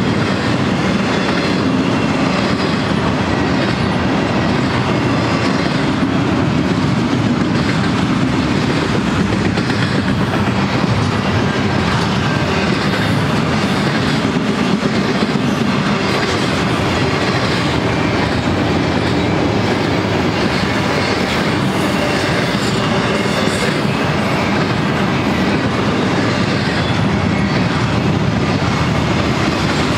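Steel wheels of double-stack intermodal well cars running steadily past on the rails: a loud, even rumble with scattered light clicks.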